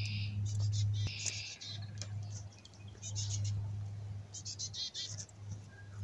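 Female black-capped chickadee giving the raspy, fledgling-like begging call: short bursts of quick, harsh high notes, repeated about five times. Females beg like this before nesting season.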